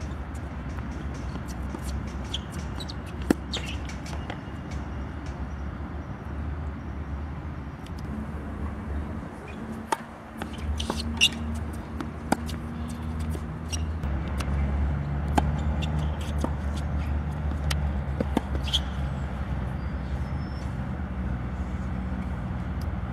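Tennis rally: rackets striking a tennis ball, sharp pops at irregular intervals a second or more apart, over a steady low rumble.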